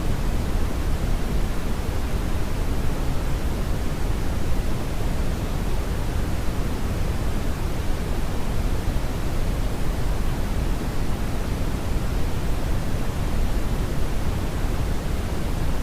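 Steady brown (Brownian) noise: an even, unchanging hiss weighted heavily toward the low end, a deep rumble with fainter hiss above.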